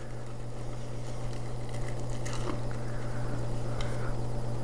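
Rustling and light shuffling of a fabric laptop bag and the cables inside it as hands rummage through it, over a steady low electrical hum.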